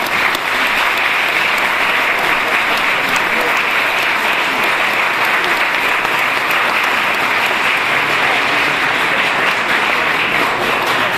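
Audience applauding steadily, a dense clapping from many hands.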